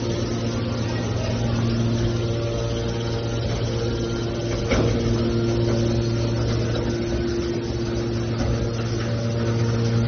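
Hydraulic baler for aluminium cans running: a steady motor-and-pump hum whose pitched overtones fade and return as the load changes, with a single knock about five seconds in.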